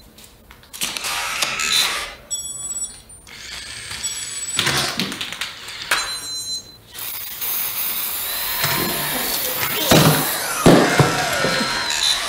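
Mechanical whirring and ratcheting of a bipedal humanoid robot's joint motors as it moves, broken by short bursts of high electronic chirps, with a few heavy knocks near the end.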